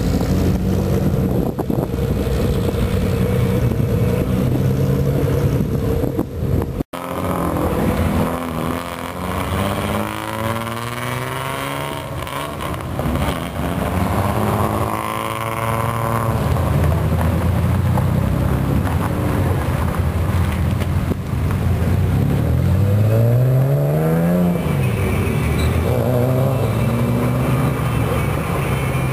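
Loud aftermarket exhausts of old Japanese cars, one steady engine drone first and then engines revving up and down as they pull away in turn. A sharp rising rev comes about two-thirds of the way through, followed by a couple of shorter blips.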